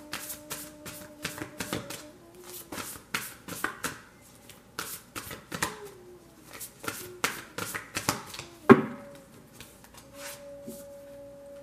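Tarot cards being shuffled by hand: a rapid, uneven run of card snaps and riffles, with one louder slap of the deck about nine seconds in. Soft background music hums underneath.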